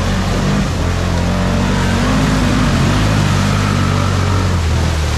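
ATV engine running steadily under throttle, its pitch wavering up and down a little about halfway through, over a constant hiss of noise.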